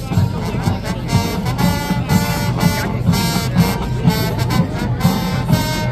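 Marching band playing, brass over a steady beat of drums.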